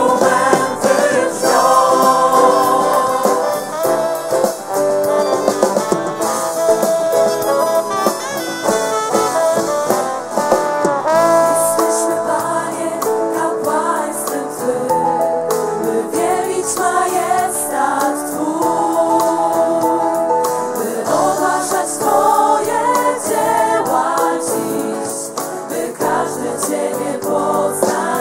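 Live song performance: several women singing together into microphones over a band accompaniment of violins, acoustic guitar and keyboard, with light percussion ticking through it.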